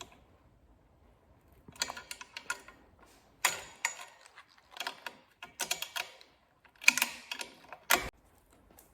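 Hand tool tightening the mounting bolts of a motorcycle auxiliary light bracket: irregular bursts of short metallic clicks and scrapes, the sharpest near the end.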